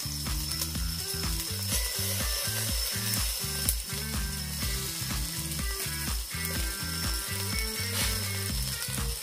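Chicken cartilage sizzling and crackling on a wire grill over charcoal, with scattered small pops. Under it runs a background music track with a quick, choppy low beat.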